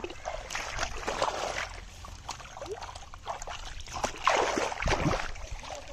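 Splashing and sloshing of shallow muddy water as a hand plunges in to grab a fish, in irregular bursts; the loudest comes about four seconds in.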